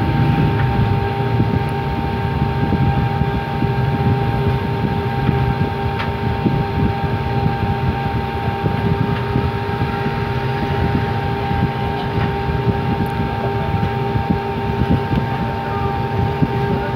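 A steady mechanical hum from a running motor: a low rumble with a few steady tones above it, and a few faint ticks.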